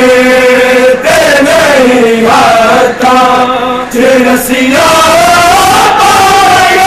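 A group of men chanting a Muharram mourning lament (nauha) together, loud, in long held notes that break off briefly between lines.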